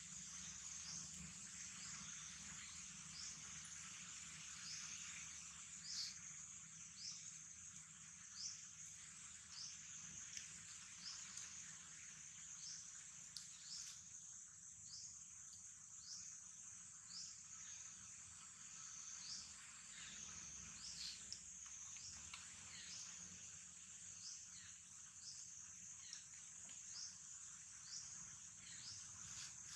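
Steady, high-pitched drone of insects in the forest, with a short high chirp repeating about once a second.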